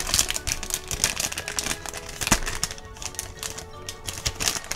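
Plastic My Little Pony blind bag crinkling and crackling as it is handled and torn open: many sharp crackles close together, over soft background music.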